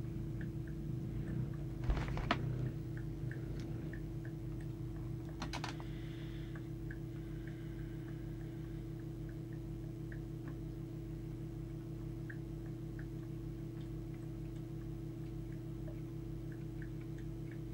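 Steady low electrical hum on the workbench, with faint scattered ticks. A short cluster of clicks and rustle comes about two seconds in and again about five and a half seconds in, as a trimming tool is worked in a transformer core of a CB radio during transmitter alignment.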